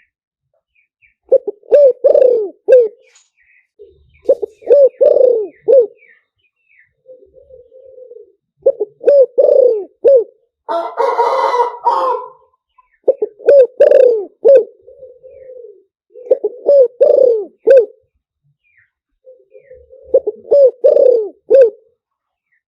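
Spotted dove cooing in repeated phrases of several notes, one phrase every three to four seconds. A harsher, noisier call of about a second and a half sounds about eleven seconds in.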